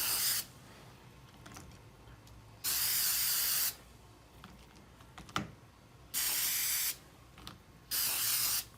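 Aerosol can of Citristrip paint stripper spraying in short hissing bursts: one ending just after the start, then three more, each about a second long or less, with quiet gaps between.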